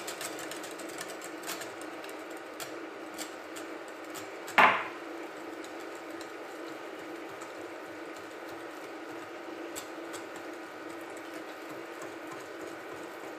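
Wire whisk beating thin pancake batter in a glass bowl, a fast, steady ticking and swishing of the wires against the glass as flour is mixed in. About four and a half seconds in comes a single loud knock: the mug of flour set down on the stone counter.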